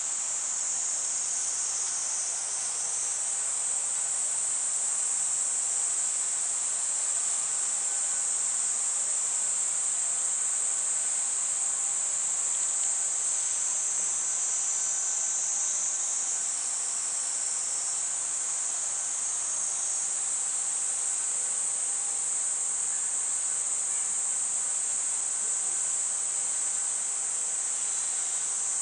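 Summer cicadas buzzing in a steady, high-pitched chorus that swells in a few places.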